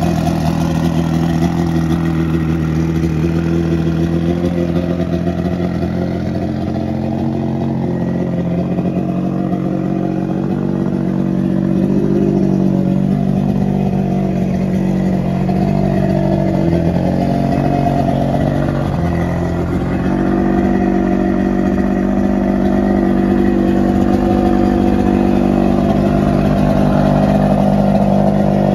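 Force 125 hp two-stroke outboard motor running steadily at idle out of the water, its speed wavering slightly midway before settling.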